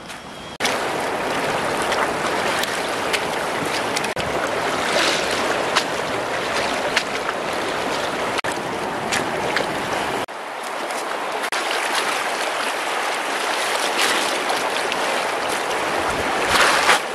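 Swollen, fast-flowing river water rushing steadily, with wind buffeting the microphone. The low wind rumble drops away about ten seconds in, and the water is briefly louder near the end.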